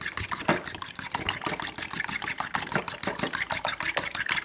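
Raw eggs being whisked with a fork in a ceramic bowl: a rapid, even clatter of the fork against the bowl, several strikes a second.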